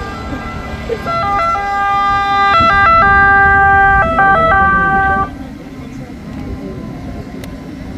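Electronic two-tone siren of an Italian emergency medical car (automedica). It starts about a second in, steps back and forth between a high and a low note with a few quick switches, and cuts off suddenly about five seconds in.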